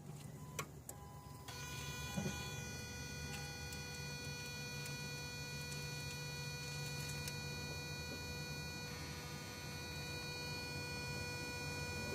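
Steady electric buzz with a whine of several high pitches over a low hum from a 2002 Toyota Prius's electronic throttle body motor, the whine setting in about a second and a half in, with a few clicks near the start. The owner takes the odd buzz for a fault in the throttle body motor, whose plastic has cracked.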